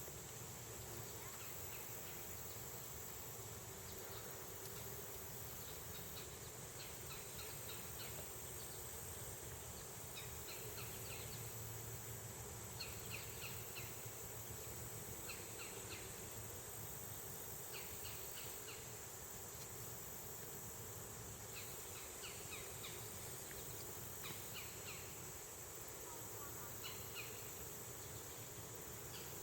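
Late-summer insect chorus: a steady high-pitched drone, with short trains of quick chirps repeating every second or two.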